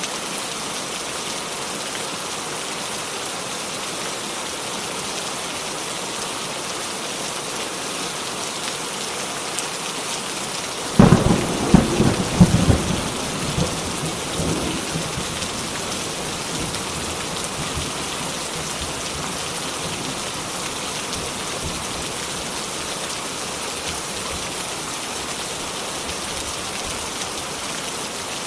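Steady heavy rain falling, with a sharp close thunderclap about a third of the way in that crackles and rumbles away over several seconds.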